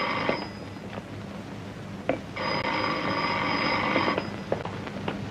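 An old wall-mounted telephone's bell ringing in two rings: the first cuts off just after the start, and a second ring of nearly two seconds follows about two seconds later.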